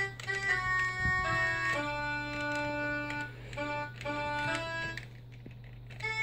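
Sound Blaster Live! EMU10k1 sound card's synthesizer playing a slow melody of single held notes in a reedy bagpipe voice, the notes set off from the computer keyboard through Creative's Audio HQ keyboard software. The notes break off briefly about five seconds in.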